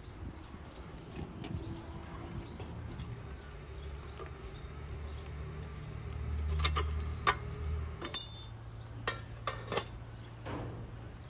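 Brass samovar parts clinking as its top and chimney pipe are handled and fitted. A run of sharp metallic clinks starts about halfway through and comes in small clusters, over a low steady rumble.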